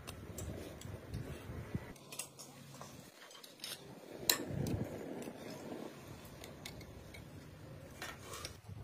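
Kachoris deep-frying in hot oil in a steel kadai, a steady sizzle, with a few sharp metal clinks of a slotted skimmer against the pan, the loudest about four seconds in.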